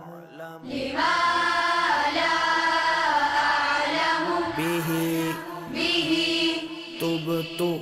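Children's voices chanting an Islamic devotional recitation in unison, a long drawn-out melodic phrase with choir-like harmonies. About a second in, the voices swell into a fuller, higher passage for several seconds, then settle onto lower held notes.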